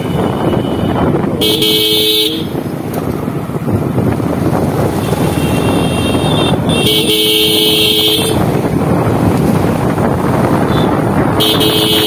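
A vehicle horn gives three blasts of about a second each, a few seconds apart, each a steady two-note tone. Under them runs the constant noise of a motorcycle riding through street traffic.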